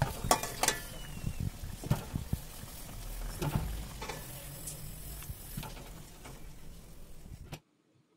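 Potatoes sizzling in hot oil in a kadai, with sharp clinks and knocks of a metal spatula against the pan as the fried pieces are lifted out into a steel bowl. The sizzle cuts off suddenly near the end.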